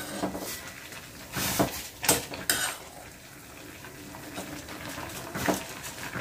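Metal spoon clinking against a stainless steel saucepan as rice vermicelli is stirred and lifted in boiling water. A few sharp clinks come about one and a half to two and a half seconds in, and another near the end.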